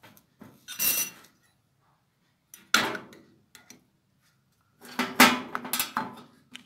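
Metal spoon scraping scoops of set homemade ice cream from a plastic box and knocking against a glass bowl, in three separate spells: one about a second in, a sharper knock near three seconds, and a busier run of scrapes and knocks near the end.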